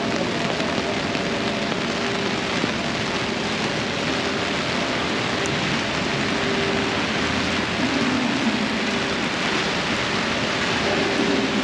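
Heavy rain falling steadily on the street and on an umbrella overhead, with city traffic underneath; a vehicle comes up slightly louder about eight seconds in.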